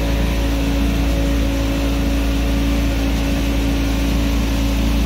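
Motorboat engine running steadily, heard from on board: a constant, even drone with a steady hum and a heavy low rumble underneath.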